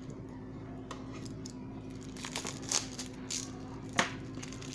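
Plastic shrink wrap on a metal card tin being slit with a utility knife and peeled, crinkling and tearing in scattered crackles, with one sharp knock about four seconds in.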